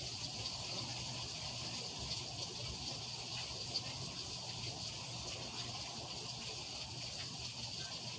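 Heavy rain falling steadily, with one brief sharp tap about four seconds in.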